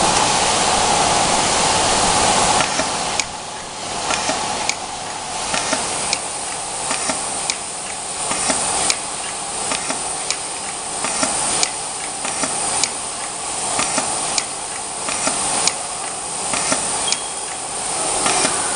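Semi-automatic flat-surface labeling machine working: a loud rushing noise for the first few seconds, then sharp clicks and knocks every second or so from its pneumatic pressing head cycling, over a steady hiss.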